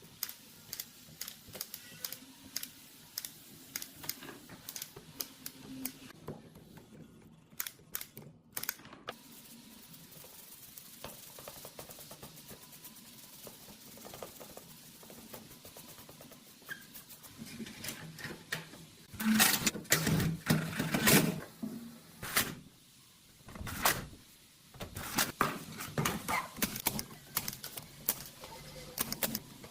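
Irregular small clicks, taps and knocks of hands and tools working on an amplifier, with a louder run of rattling knocks about two-thirds of the way in.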